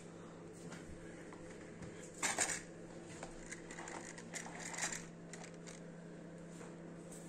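Steady low electric hum, most likely the autopilot's linear actuator motor running. Clicks and clatter of objects being handled on a glass table come over it, loudest about two seconds in and again near five seconds.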